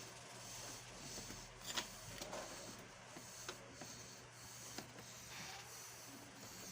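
Faint handling noise from hands working on the vacuum cleaner's parts: soft rubbing with a few small clicks and taps, the loudest a little under two seconds in. The vacuum's motor is not running.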